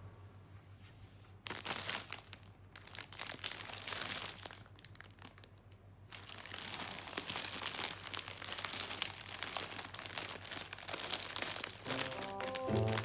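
Crinkling and rustling of crinkly material, in two spells with a short lull between them. A melody comes in near the end.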